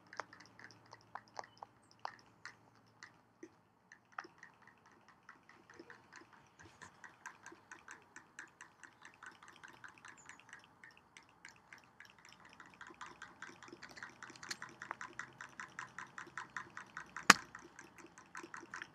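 Rabbit chewing dry treats: a run of small crisp crunching clicks, sparse at first, then quick and steady from about six seconds in and louder toward the end, with one sharper, much louder click near the end.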